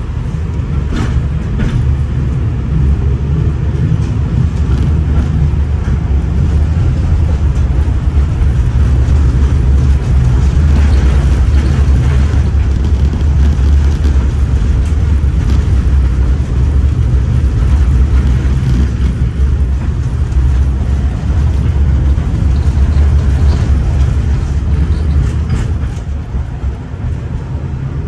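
LVS-86K tram running along the track, heard from inside the car: a steady, loud low rumble of wheels on rails and running gear. It grows louder over the first few seconds and eases a little near the end.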